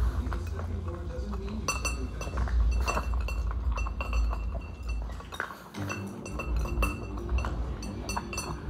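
A pug eating from a ceramic bowl. There are repeated sharp clinks with a short ring as its muzzle and food knock against the bowl, over low eating noise that fades out about halfway through.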